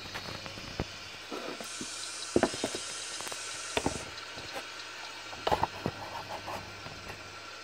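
N-scale model trains running on the layout: a faint steady motor hum and hiss, with irregular small clicks and knocks, the loudest about two and a half and five and a half seconds in.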